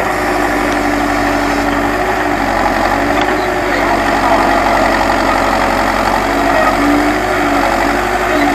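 Terex backhoe loader's diesel engine running steadily.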